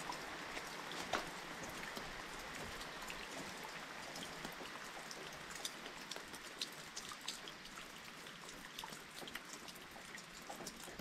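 Faint rain: a steady soft hiss with many scattered small drops ticking at random.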